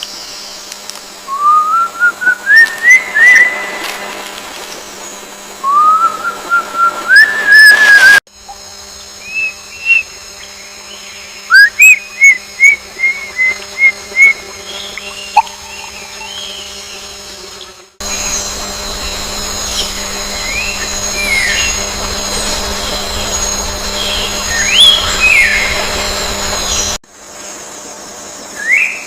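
Bird song: series of rising whistled notes, repeated in short phrases, over a steady high-pitched background. The sound changes abruptly three times as separate recordings are cut together.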